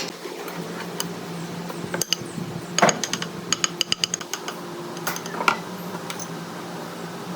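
A run of sharp metallic clicks, taps and clinks, quickest about three and a half to four seconds in, over a steady low machine hum.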